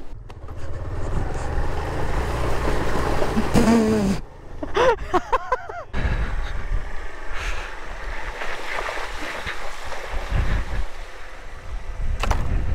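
Suzuki Van Van 125's single-cylinder engine running at low speed as the bike rides a muddy dirt track, with wind noise on the helmet microphone. A short voice cuts in about four seconds in.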